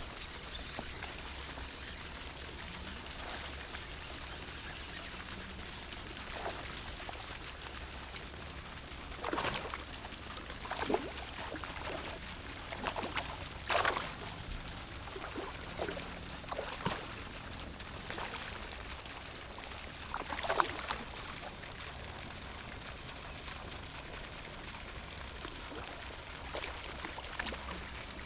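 Steady pouring and splashing of a pond aerator fountain spraying water. A handful of brief sharp sounds stand out over it, clustered from about a third of the way in to about three-quarters through.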